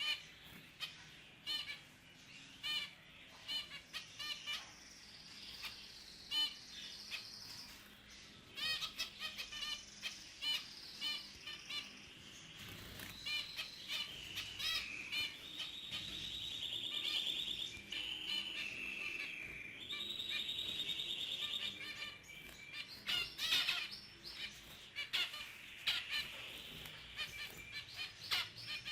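Zebra finches calling, with many short nasal beeps repeated throughout and stretches of buzzy song in the middle.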